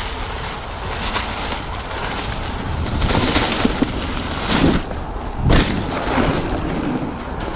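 Mountain bike tyres rolling and crunching through deep dry leaf litter on a trail: a steady rustling hiss with louder surges about three, four and a half and five and a half seconds in.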